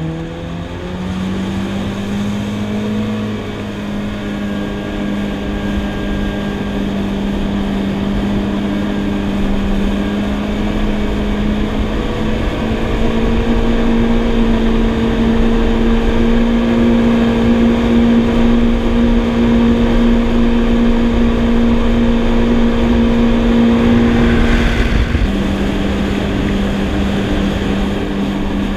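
Yamaha WaveRunner jet ski engine running steadily at cruising speed under way. Its note steps up a little about twelve seconds in and eases back down near the end.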